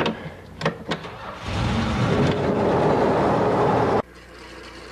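A belt-driven woodworking machine cutting wood: a loud, dense cutting noise starts about a second and a half in and cuts off suddenly near the end, leaving a quieter steady hum.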